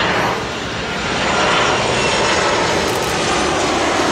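Jet engines of a Boeing 737-800 airliner on landing approach, passing low and close. The engine noise swells right at the start and then holds loud and steady.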